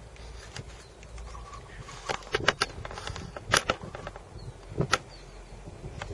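Outdoor ambience: a steady low rumble with a few sharp clicks and knocks, the loudest about halfway through.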